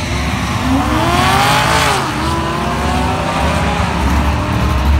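Drag-racing car accelerating hard down the strip, its engine note climbing in pitch, dropping once at a gear shift about two seconds in, then climbing again.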